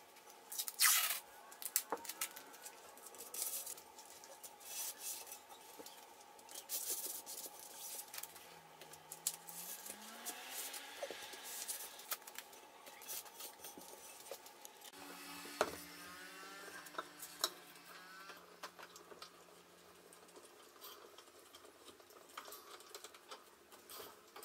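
Masking tape being pulled, torn and pressed along a metal screen-printing frame: a run of sharp rasps, scrapes and small knocks from handling, the loudest about a second in.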